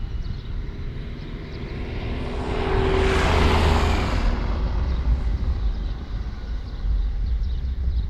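A vehicle passes by: its noise swells, peaks about three and a half seconds in and fades a second later, over a steady low rumble.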